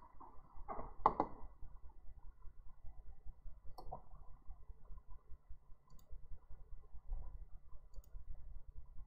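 Sparse small clicks over a low steady hum, with a brief louder noise about a second in.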